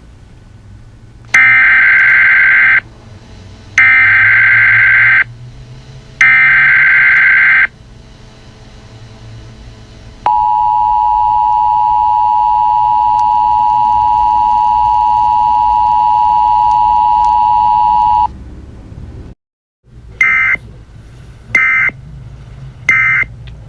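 Emergency Alert System broadcast tones: three loud SAME digital header bursts about a second apart, then the steady two-tone EAS attention signal held for about eight seconds, then three short data bursts near the end. A low hum runs underneath.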